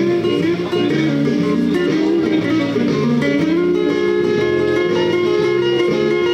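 Acoustic guitar played solo: a quick picked melody over low bass notes.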